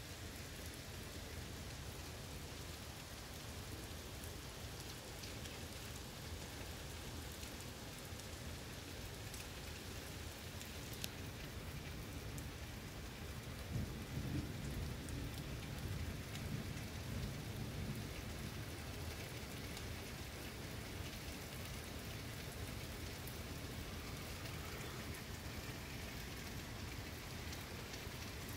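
Heavy rain falling steadily through trees. About halfway through, a roll of thunder rumbles low for several seconds, loudest as it begins.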